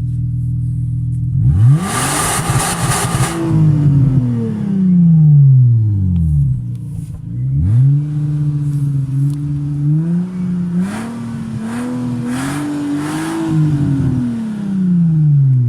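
Hyundai Coupe's 2.7-litre V6 on its stock exhaust, revved twice from idle. The first rev climbs quickly and falls slowly back. The second climbs in steps, is held for several seconds, then drops back to a steady idle.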